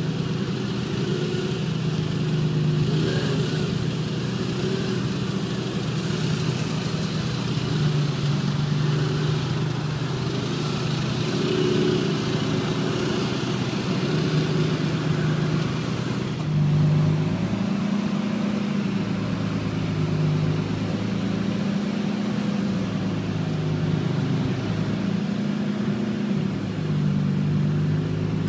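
Supercar engine idling steadily, its note rising and falling slightly with light throttle, and the note changes about two-thirds of the way through.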